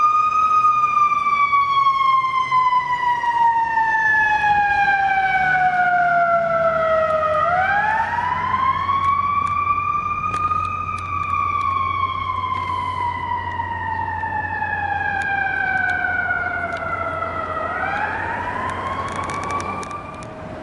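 Electronic siren of a responding fire department rescue ambulance on a slow wail. The pitch sinks slowly for about seven seconds, sweeps back up, sinks again and starts rising once more near the end. A low steady engine hum runs underneath.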